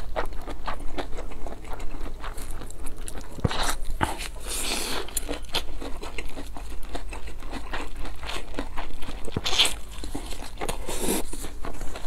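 A person biting and chewing food close to a clip-on microphone: steady wet chewing with crisp little crackles, and a few louder crunchy bites about four and a half, nine and a half and eleven seconds in.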